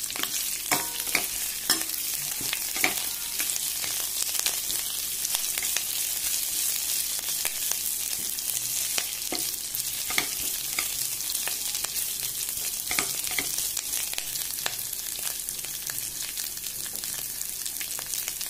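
Fresh drumstick (moringa) leaves frying in hot oil with curry leaves and spices in a pan, sizzling steadily as they are fried until completely dry. There are scattered sharp clicks and crackles, most of them in the first few seconds.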